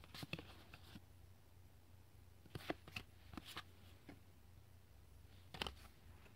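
Trading cards being handled and slid over one another: faint rustles and light clicks in three short bunches, just after the start, around three seconds in and near the end, over a faint steady low hum.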